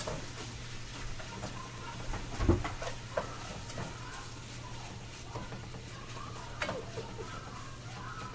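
Spatula stirring and scraping seasoned meat frying in a pan, with a light sizzle and scattered clicks of the utensil against the pan. A louder knock comes about two and a half seconds in.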